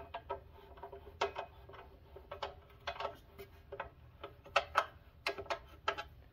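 Irregular light metallic clicks and clinks, about one or two a second, as the blade cover plate of an Evolution R355CPS chop saw is fitted and its screws are turned with an Allen key. The clicks get louder in the last couple of seconds.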